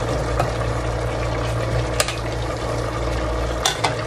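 Metal spoon stirring pork and vegetables in a stainless steel pot, clinking sharply against the pot a few times, the clearest about two seconds in and twice near the end. Underneath, the browning meat sizzles steadily over a low hum.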